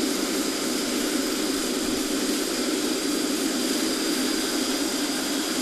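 Small turret lathe running steadily, driven by a 2 horsepower swimming-pool pump motor through a V-belt, a Yamaha three-speed motorbike gearbox and a chain: an even mechanical whir with no knocks or changes.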